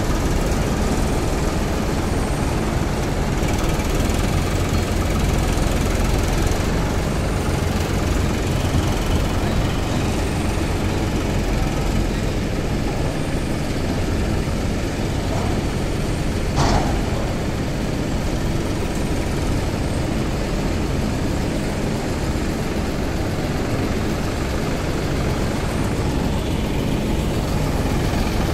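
Farmtrac tractor's diesel engine running steadily while its front loader works a cotton heap, with one brief sharp noise about two-thirds of the way through.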